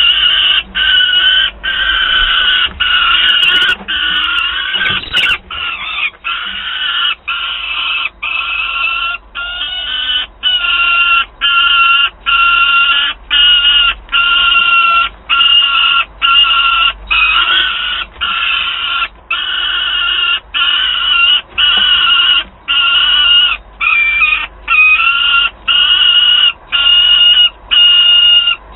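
Juvenile peregrine falcon screaming to beg for food: a long run of loud, harsh calls, about one a second, each separated by a short gap.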